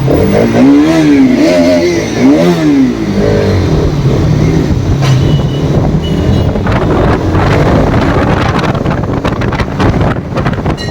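Bajaj Pulsar RS200's single-cylinder engine revved up and down several times in the first three seconds, then running steadily while riding, with wind noise on the helmet microphone throughout.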